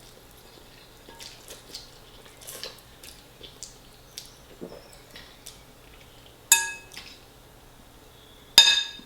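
Soft, scattered eating noises, then a metal fork striking a plate twice, each strike ringing briefly; the second, near the end, is the louder.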